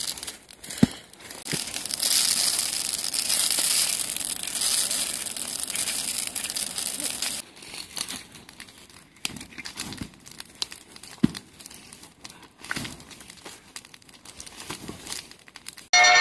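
Dry forest undergrowth crackling and snapping in irregular clicks, with a steady hiss from about two seconds in until about seven seconds.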